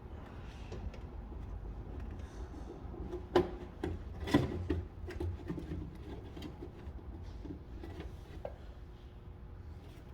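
Rubbing and scraping as a door latch and its cables are worked into place inside a car door, with two sharp knocks about three and a half and four and a half seconds in.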